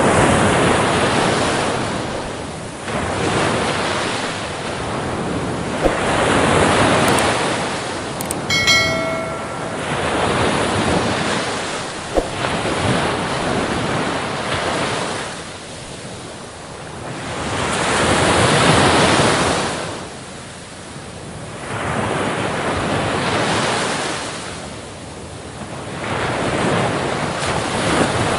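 Waves washing in and breaking, the rush swelling and fading every few seconds. About nine seconds in, a brief pitched call-like sound is heard over the water.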